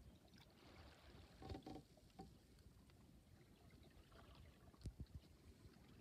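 Faint water sloshing and trickling along the hull of a small boat under sail, with a couple of soft knocks.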